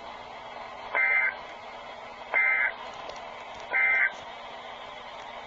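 NOAA Weather Radio SAME end-of-message data bursts: three short, shrill two-tone data chirps about a second and a half apart, over a faint steady radio hiss. They signal the end of the emergency alert message.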